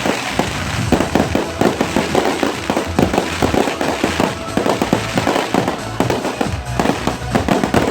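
Fireworks going off in a rapid, continuous barrage of bangs and crackles, several every second.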